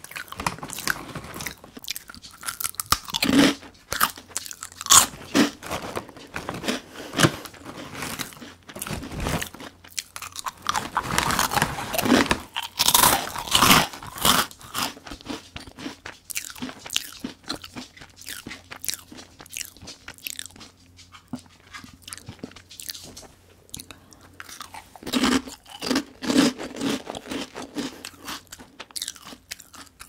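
Close-miked crunching and chewing of Meoktaekkang, crisp puffed wheat snack sticks, with many sharp bites. There is a denser, louder run of crunching midway through and another cluster near the end.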